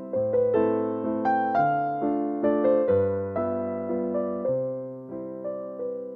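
Background music: a piano waltz, with notes struck and fading over low bass notes.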